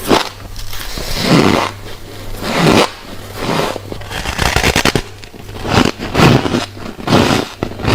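Close-up crunching and chewing of refrozen freezer frost: a run of crisp crunches, about one to two a second, with a quick crackly patch near the middle. A steady low hum runs underneath.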